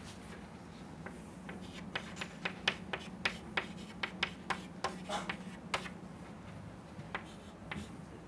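Chalk writing on a chalkboard: a quick run of sharp taps and short scrapes as symbols are written, thickest in the middle, with a few more near the end. A low steady hum runs underneath.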